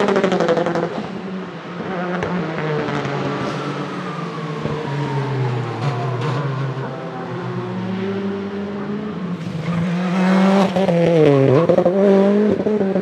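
Citroën C3 R5 rally car's 1.6-litre turbocharged four-cylinder engine, revving hard as the car accelerates and slows through corners, its pitch falling and rising. It runs loudest near the end, with quick wavering revs.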